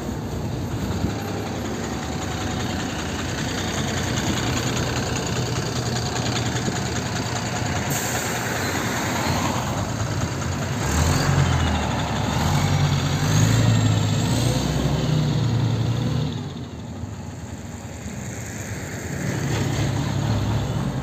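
A NefAZ 5299 city bus's diesel engine running as the bus pulls away and passes close by. The engine is loudest for several seconds in the middle, drops off suddenly as the bus moves away, and rises again briefly near the end.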